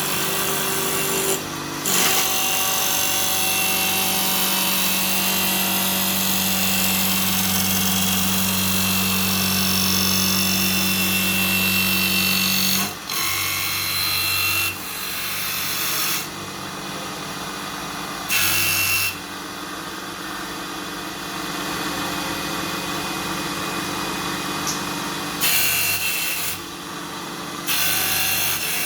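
Homemade CNC wood lathe running, its motor humming steadily while the tool cuts the turning wood, with the pitch and loudness switching abruptly several times as the machine moves between steps.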